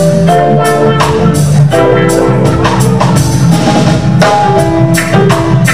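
Live band playing: held keyboard chords over bass guitar, with drum kit and percussion hits keeping a steady beat about twice a second.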